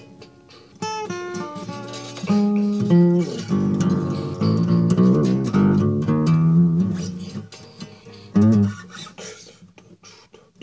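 Guitar music: plucked notes and chords ringing out, dying away to a quiet pause over the last couple of seconds.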